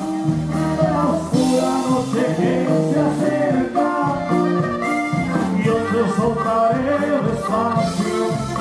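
Live norteño band music: button accordion melody over bajo sexto, drums and congas.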